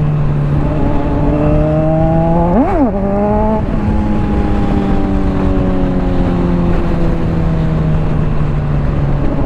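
Honda CBR600RR's inline four-cylinder engine through a Hotbodies Stinger slip-on exhaust, pulling in third gear: the pitch climbs slowly, jumps up and drops back quickly a little under three seconds in, then falls slowly as the bike rolls off the throttle. Wind rush on the helmet-mounted microphone runs underneath.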